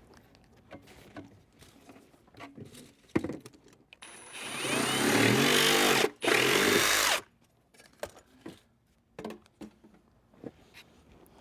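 A power tool cutting through a 4-inch plastic drain pipe for about three seconds, with a brief stop partway through. Light knocks from handling the pipe come before it.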